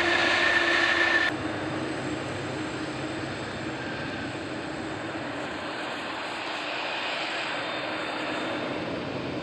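Airbus A300-600ST Beluga's General Electric CF6-80C2 turbofans running loud on the runway, with a steady high fan whine. About a second in the sound drops suddenly to quieter, steady jet engine noise from aircraft farther off.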